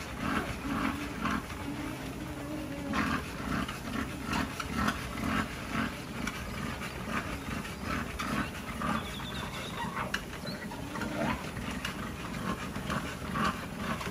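Dogs growling low and wavering, with repeated tapping of paws on a moving treadmill belt.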